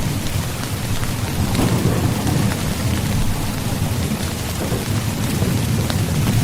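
Steady heavy rain with an even hiss, scattered drop ticks and a continuous deep low rumble underneath.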